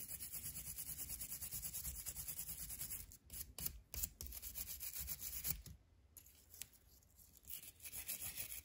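Small brass-bristled wire brush scrubbing the corroded metal contact points of a boat horn switch in fast back-and-forth strokes, cleaning the corrosion off. The strokes break off briefly about three seconds in, go quiet for about two seconds from about six seconds in, and pick up again near the end.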